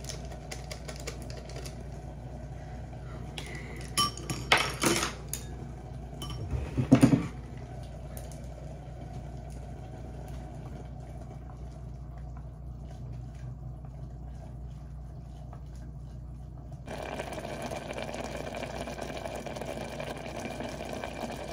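Instant-noodle sauce and seasoning packets being torn open and squeezed out over a small electric cooking pot, with crinkling and a few sharp clinks and knocks against the pot, the loudest about seven seconds in. Near the end the sound turns into a steady low hiss as the noodles sit cooking in the pot.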